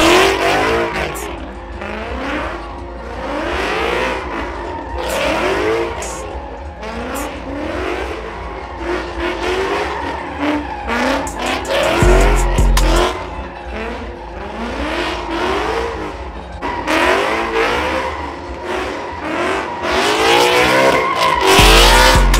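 Ford Mustang doing donuts, its engine revving up and falling back about once a second over the squeal of its spinning rear tires.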